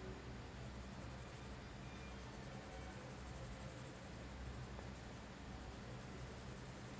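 Faint scratching of a colored pencil shading on paper, over a low steady hum.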